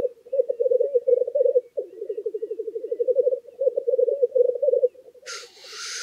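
Male black grouse bubbling (rookooing) at the lek: a rapid, rolling coo in long repeated phrases with brief breaks, the cocks' spring courtship display. About five seconds in comes a short harsh hiss.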